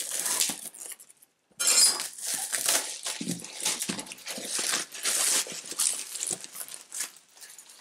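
Plastic shrink wrap being torn and peeled off a board-game box, an irregular crinkling crackle. It stops briefly about a second in, then runs on almost without a break.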